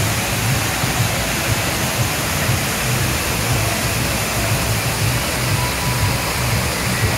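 Fountain jets and cascades splashing in a steady, even rush, with a low pulsing rumble underneath.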